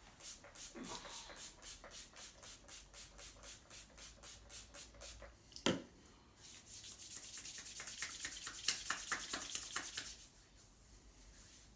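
Hands rubbing briskly over skin in a barber's massage, in quick rhythmic strokes of about five a second. Near the middle there is a single sharp smack, and after it a denser, louder stretch of fast rubbing that stops about two seconds before the end.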